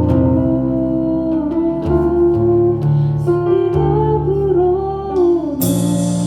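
Church praise band playing a slow passage: sustained keyboard chords and held bass notes under a moving melody, with a cymbal crash shortly before the end that rings on.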